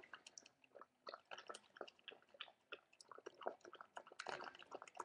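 A dog eating chunky wet canned food from a metal bowl: faint, irregular chewing and mouth clicks, several a second.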